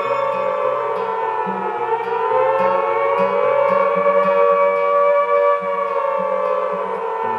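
Intro soundtrack: a long wailing, siren-like tone that slowly rises, holds, and sinks again near the end, over a pulsing low bass line.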